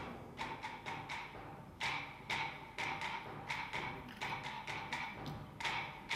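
Sparse percussive dance music: dry, wooden-sounding pitched taps struck irregularly, about two a second. A deep drum hit dies away during the first second.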